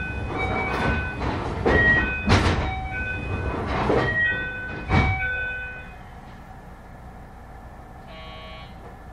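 Station sounds beside a stopped JR 221 series train before departure: a string of short beeping tones at changing pitches over several loud rushes of noise. The noise dies down about six seconds in, and a short chime sounds near the end.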